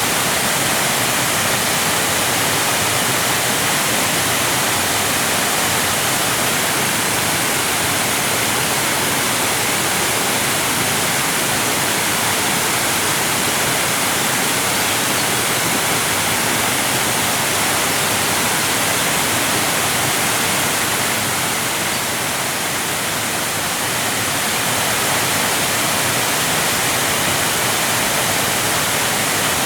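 Waterfall: a steady rush of falling water, fairly loud, easing slightly for a couple of seconds about two-thirds of the way through.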